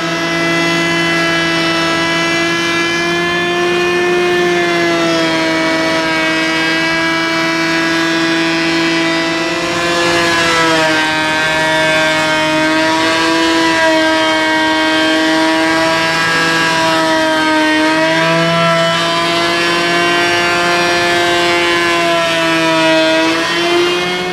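Makita KP312 12-1/4-inch electric hand planer running and cutting a rough-sawn timber beam: a steady, high motor-and-cutterhead whine that sags briefly in pitch about three times as the blades take load.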